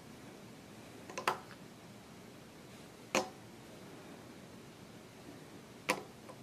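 Three sharp clicks, about two seconds apart, as small plastic Sifteo cubes are knocked together and set down on a hard table.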